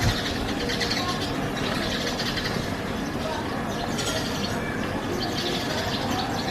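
Many birds chirping at once in a dense, unbroken chatter of short high calls.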